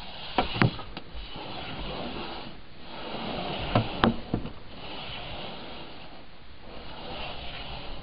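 Snow shovel scraping and digging through snow, a rough rasping in repeated strokes, with a few sharp knocks about half a second in and again around four seconds in.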